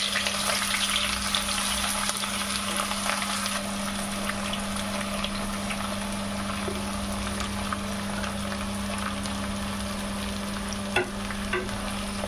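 Sliced onions frying in hot mustard oil in a steel pot: a steady sizzle with fine crackling, loudest as the onions go in and settling a little after a few seconds. Near the end a wooden spoon knocks against the pot a few times while stirring.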